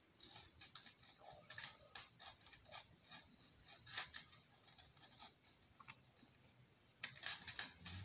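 Pencil point scratching as it is drawn around the edge of a small round craft piece, scoring the line deeper: a faint run of short scratches and ticks, with a louder bunch near the end.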